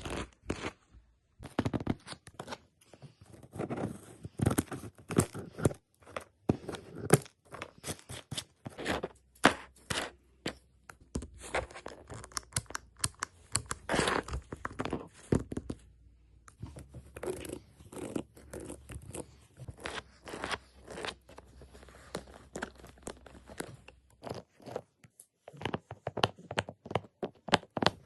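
Fidget board toys being worked by hand: a dense, irregular run of sharp clicks, snaps and short scraping rasps, with a few brief pauses.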